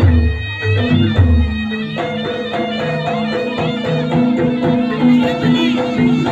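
Jaranan ensemble music: a reedy wind instrument plays a sustained, nasal melody over drums. Heavy low drum beats sound through the first second and a half or so, then drop out while the melody goes on.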